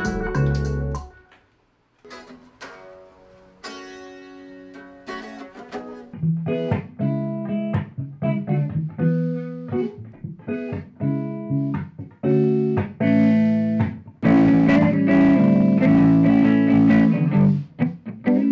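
Guitar playing. A chord rings out and stops about a second in, then single plucked notes start up and grow into steadier picking, building to louder, fuller chords about fourteen seconds in.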